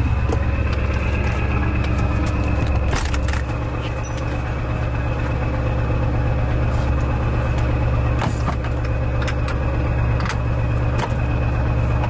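1996 Ford F350's 7.3 Powerstroke turbo-diesel V8 idling steadily, with a few sharp clicks and knocks over the top.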